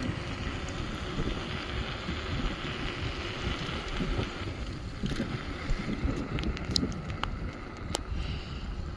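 Wind buffeting the microphone over a low, steady rumble, with a few light clicks in the second half.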